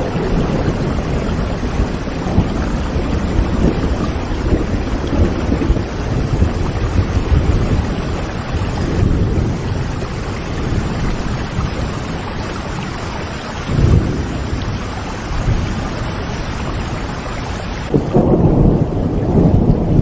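Steady heavy rain with thunder rumbling low. The rumbles swell about two-thirds of the way through and again near the end.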